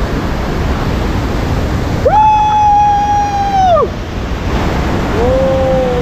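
Steady rush of churning river water below a waterfall, heard from a bamboo coracle. Over it, a person gives one long, held shout about two seconds in that drops away at the end, and a shorter, lower one near the end.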